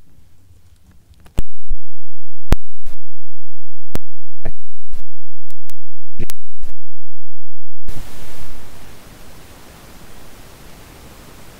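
Scattered single clicks of computer keys and a mouse, about a dozen at irregular intervals, followed from about eight seconds in by a steady hiss of microphone noise.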